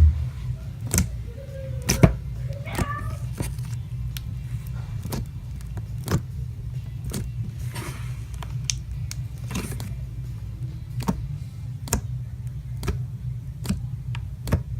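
Regular slime being squished and stretched by hand, giving sharp pops and clicks about once a second over a steady low hum.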